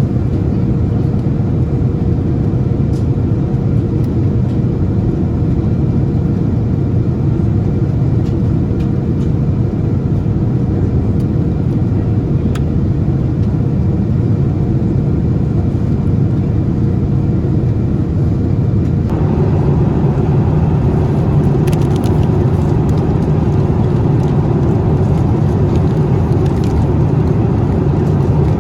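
Steady jet-airliner cabin noise in flight aboard a Boeing 787-9: a deep, even rumble of engines and airflow, with a faint steady hum underneath. About two-thirds of the way through, the noise turns brighter and the hum drops out.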